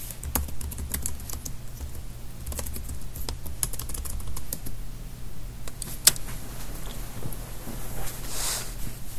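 Typing on a laptop keyboard: two quick runs of key clicks, then a single louder keystroke about six seconds in as Enter runs the command. A short rush of noise comes near the end.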